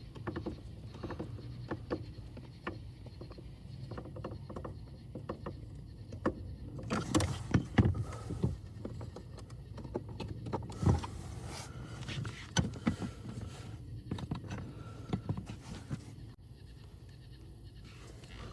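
Hand tools and parts clicking and knocking while a screwdriver is fetched and work goes on at the van's blower motor resistor. The clatter is louder about seven to eight seconds in and again around eleven seconds.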